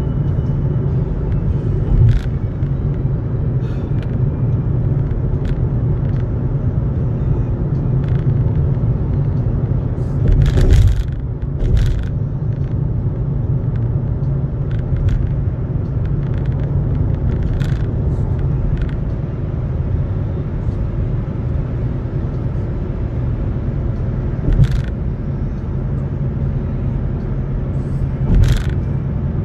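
Steady low road and engine rumble inside a moving car's cabin. About half a dozen short knocks or rattles are spread through it, and the longest and loudest comes about a third of the way in.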